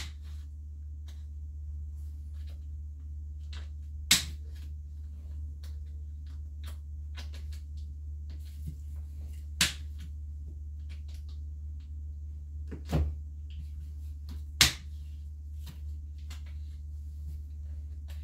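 Shears snipping through the tough, woody stems of antler reishi mushrooms: four sharp snips at irregular intervals, with fainter clicks and crackles of the mushrooms being handled between them. A steady low hum runs underneath.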